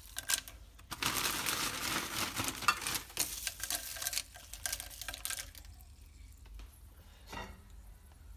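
Handfuls of frozen green beans rustling and clicking as they are handled and dropped into a crock pot, busiest over the first few seconds and fainter near the end.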